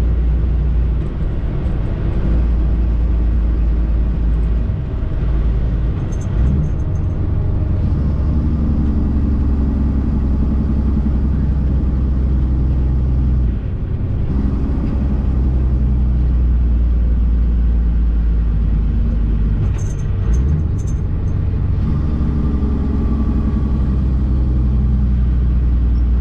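Diesel engine of an International Prostar semi truck running under way, heard from inside the cab. The engine note dips and picks back up a few times, near 5, 14 and 20 seconds in, as the driver shifts up through the gears.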